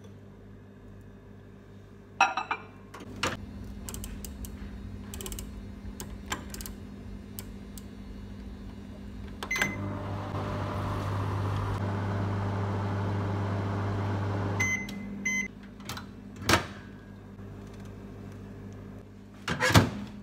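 Microwave oven being used: the door clacks shut and a keypad beep sounds, then the oven runs with a steady hum for about five seconds and stops with two beeps, and the door clacks again as it is opened near the end.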